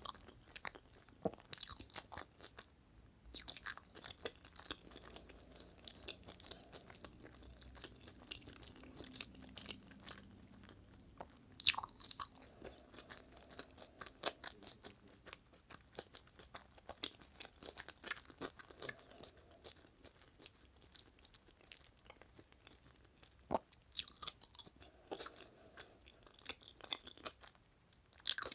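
Close-miked chewing of food with the mouth closed: many short clicks and crackles, with a few louder crunchy snaps, about 12 and 24 seconds in and near the end.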